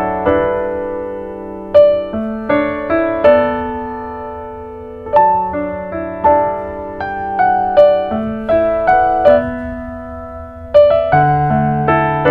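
Background piano music: a gentle melody of single struck notes and chords that ring and fade.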